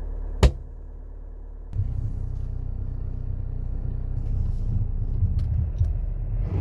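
Car engine running, with a single sharp knock about half a second in. From about two seconds in, a louder, uneven low rumble sets in as the car moves off over snow.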